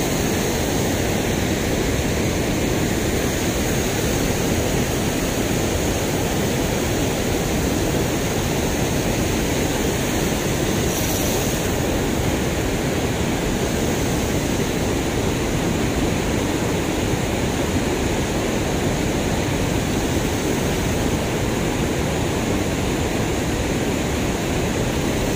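River water rushing steadily over a concrete weir, a constant even roar of spilling water.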